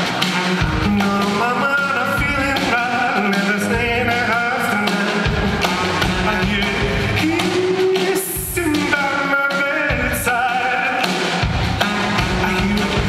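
A live song: a high, wavering solo voice singing over piano, with a low pulse recurring about once a second.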